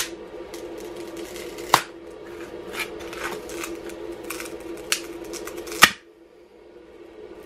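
Rigid cured polyurethane pour foam being bent and pried off a piece of plywood by hand, creaking and crackling with three sharp cracks, the loudest near the end as it breaks free. The bond holds hard enough that the foam tears before the adhesion fails. A steady background hum stops about six seconds in.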